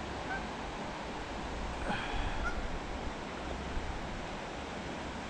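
Steady rush of water pouring over a river weir.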